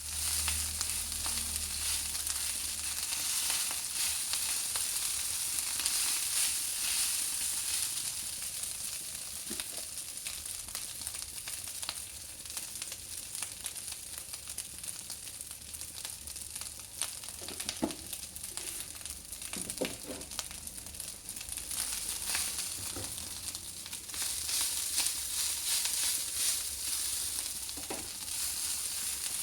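Cold leftover rice frying in hot oil in a pan: a steady sizzle full of fine crackles. A few brief squeaks come about two-thirds of the way in.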